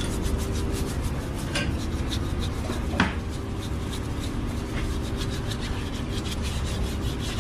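A brush scrubbing the inside of a DSG 7-speed dual-clutch transmission's aluminium bellhousing, cleaning it with petrol, in repeated irregular strokes over a steady low hum. A sharper knock comes about three seconds in.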